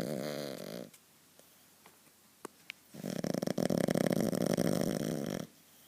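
A dog snoring. One snore trails off in the first second, then after a short pause a long, loud snore with a fast flutter runs from about three seconds in to about five and a half.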